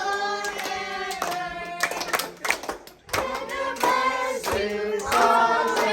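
A group of voices singing a song, with hands clapping along throughout and a short break in the singing about three seconds in.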